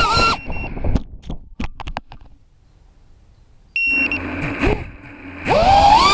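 FPV racing quadcopter (Neato 180 frame, Racerstar 2205 2600 kV brushless motors) crashing into grass. The motor whine is cut off by several sharp knocks as it tumbles, and a short electronic beep sounds after a near-quiet pause. Near the end the motors spin back up with a rising, wavering whine.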